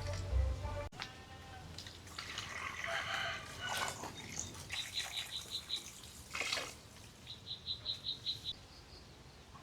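Running water that cuts off abruptly about a second in, then light rustling and clatter. A small bird gives two quick runs of short, even, high chirps, one mid-way and one near the end.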